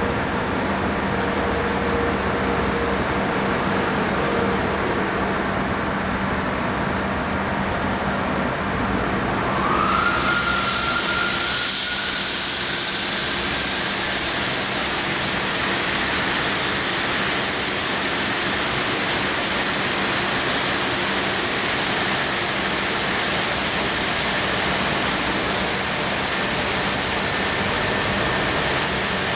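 Drive-through truck wash spraying high-pressure fresh water over a heavy truck and its chassis: a steady low hum, then about ten seconds in a short rising whine as the spray starts, followed by a loud, even rushing hiss of water jets.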